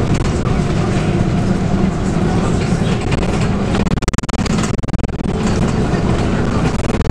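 Inside the cabin of a Scania K280UB bus on the move: its 9.3-litre five-cylinder Scania diesel engine running steadily, with the body rattling and clicking over the road.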